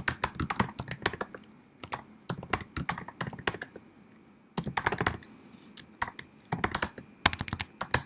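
Computer keyboard typing in quick runs of keystrokes, with short pauses about four and six seconds in.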